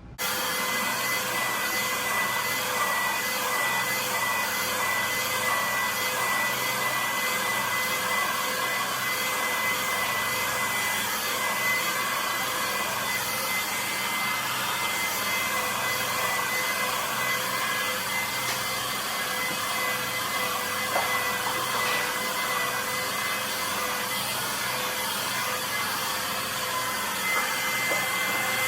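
Hand-held hair dryer blowing steadily: an even rushing noise with a thin constant whine, starting abruptly and holding unchanged.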